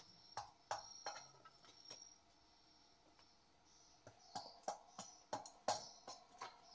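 A small blade chopping and splitting sticks of kindling on the ground: sharp wooden knocks, a few spaced ones in the first two seconds, then a quicker run of strokes in the second half.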